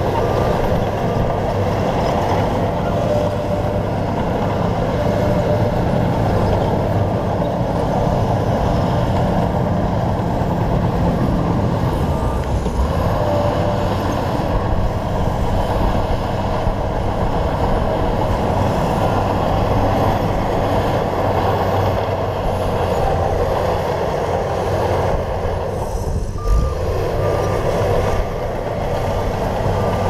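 Shantui crawler bulldozer's diesel engine running steadily under load as its blade pushes stone and soil. A repeated high beep sounds near the start and again near the end, and there is a short thump near the end.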